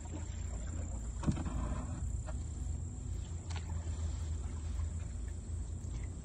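Quiet river-swamp ambience: a steady high-pitched insect drone over a low rumble, with a few faint knocks.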